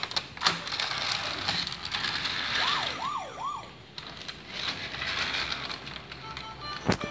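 VTech Go Go Smart Wheels toy ambulance sounding its electronic siren: three quick rising-and-falling wails about three seconds in. A sharp knock near the end.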